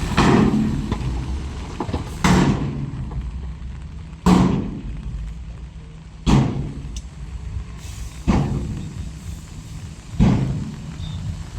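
Heavy diesel machinery running with a steady low drone, broken by a sharp, loud hit roughly every two seconds that fades away over about a second.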